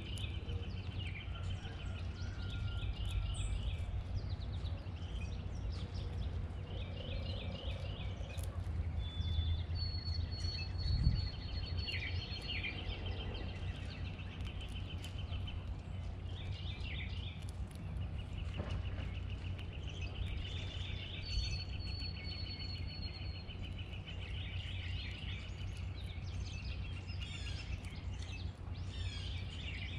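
Backyard songbirds singing and chirping in repeated rapid trills, with a couple of high, thin whistled notes, over a steady low rumble.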